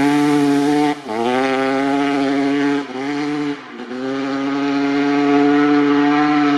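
Kawasaki KX250's two-stroke single-cylinder engine revving hard under acceleration. The note climbs and holds, dipping briefly and climbing again about one second, three seconds and nearly four seconds in.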